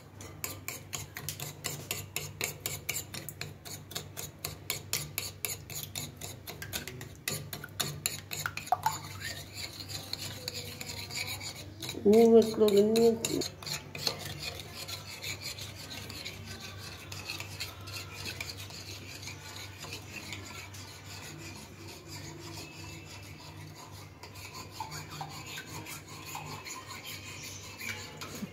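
Eggs, sugar and milk being beaten by hand in a glass bowl: fast, steady scraping and rubbing strokes of the utensil against the glass, softer in the second half. A short voice-like sound comes about twelve seconds in and is louder than the beating.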